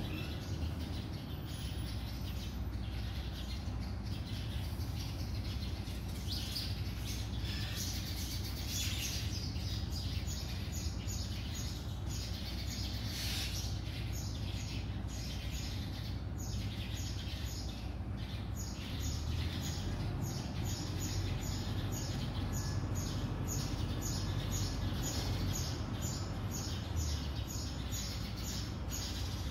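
Birds chirping outside, many short high calls in quick succession that grow busier after the first few seconds, over a steady low background rumble.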